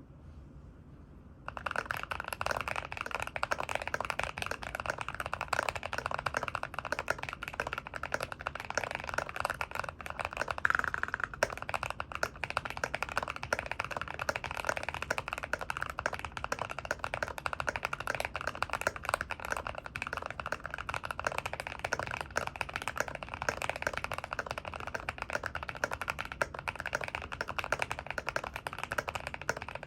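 Continuous, fast typing on a GMMK Pro mechanical keyboard with lubed Gazzew Boba U4T tactile switches on a brass plate. It starts about a second and a half in, with one louder keystroke near the middle.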